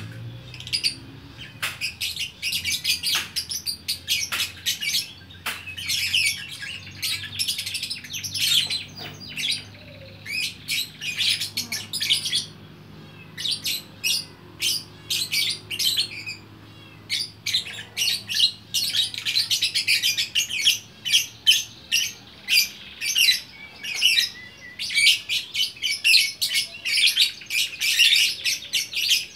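Lovebird singing a long, fast run of high-pitched chirps and chatter, with a few short pauses.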